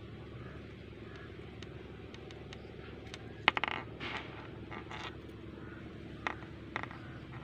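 Small electronic components and their thin wire leads handled on a tabletop. There is a sharp click about three and a half seconds in, then light scraping and rustling, and two smaller clicks near the end, over a faint steady hum.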